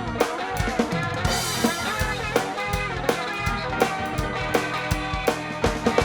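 Instrumental rock music with a driving drum kit beat and guitar.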